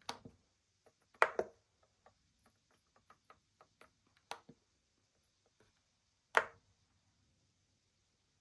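Control dial of a ResMed AirSense 10 AutoSet CPAP machine being turned and pressed to move through its menus. A run of small ticks between a few louder clicks: one at the start, a double click about a second in, one just after four seconds and one after six.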